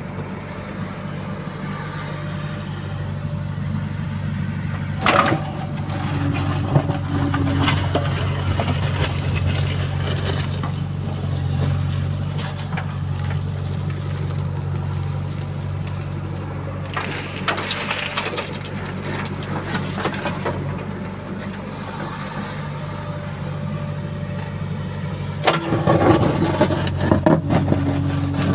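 Diesel engine of a JCB 3DX backhoe loader running steadily at work, with a couple of single knocks and, near the end, a burst of clattering knocks as soil is loaded.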